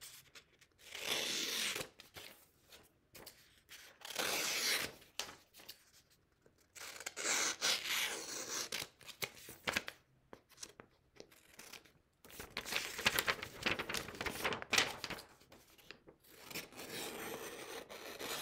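A pair of orange-handled scissors cutting through a sheet of paper along a printed border, in several runs of cutting about one to two seconds long with short pauses between.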